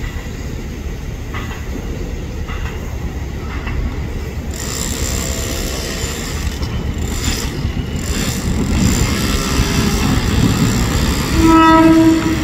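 JR 205 series electric commuter train rolling in, a steady low rumble from its wheels and motors that slowly grows louder. A short horn blast sounds near the end and is the loudest thing heard.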